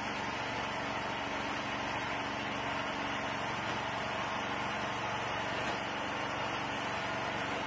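Small engine of a homemade hydraulic log splitter running steadily at an even speed, driving the splitter's hydraulic pump.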